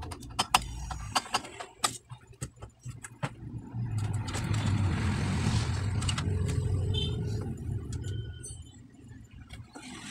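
A run of sharp clicks and knocks from amplifier circuit boards and parts being handled, then a motor vehicle's engine rumbling past, rising about four seconds in and fading away around eight seconds.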